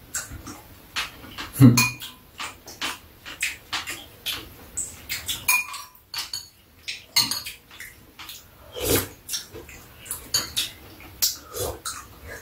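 Metal spoons clicking and scraping against ceramic bowls during a meal, mixed with mouth sounds of eating. There is a louder dull thump about two seconds in.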